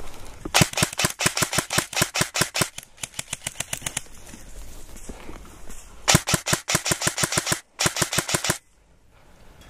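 Airsoft guns firing rapid full-auto bursts: a long burst, fainter scattered fire, then two more bursts that stop about a second before the end.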